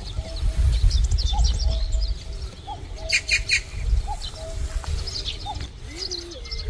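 Birds calling in the open: a low two-note call repeats about every second and a half over many quick, high chirps from small songbirds, with a thicker cluster of chirps about three seconds in. A low rumble runs underneath.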